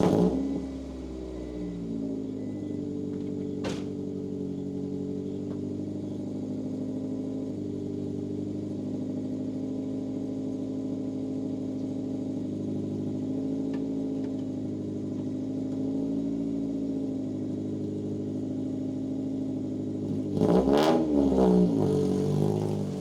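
1992 Acura Integra's four-cylinder engine catching and settling into a steady idle, with one sharp click about four seconds in. Near the end it is revved briefly, the pitch rising and falling.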